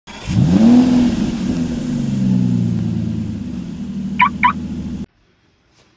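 Car engine sound effect that revs up sharply and then runs steadily, with two short high chirps just after four seconds. It cuts off suddenly about five seconds in.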